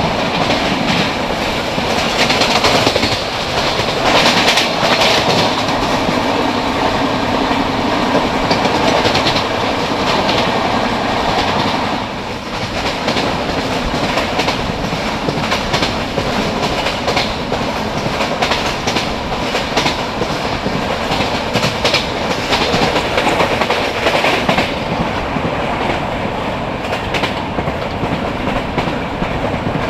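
A passenger train running at speed, heard from an open coach door. The wheels make a steady rumble and rush on the rails, with rapid clickety-clack from the rail joints.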